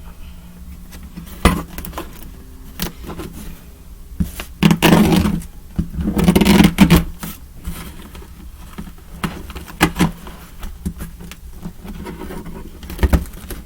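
Cardboard shipping box being handled and opened by hand: scattered knocks and clicks, with two longer scraping stretches about five and seven seconds in.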